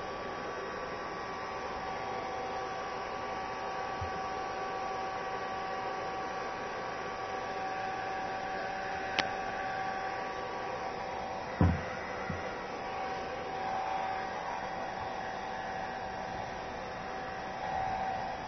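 Hair dryer running steadily, an even rush of air with a thin motor whine, while a freshly shampooed cat is dried and brushed. A few light knocks and a sharp click break in, the loudest a short thump about two thirds of the way through.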